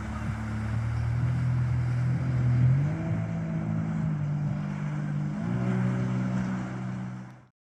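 Jet ski engine running at speed, its pitch stepping up twice as it goes, then cutting off abruptly near the end.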